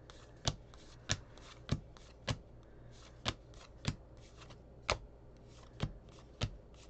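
Topps Heritage cardboard baseball cards flicked off a stack one at a time as they are sorted, about nine sharp card snaps in a fairly even rhythm, roughly two a second with a couple of short pauses.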